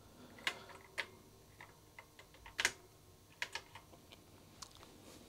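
Keys of a Commodore SX64 keyboard pressed one at a time: a dozen or so faint, irregular key clicks, the loudest about two and a half seconds in. Each key is being pressed to check its contact resistance.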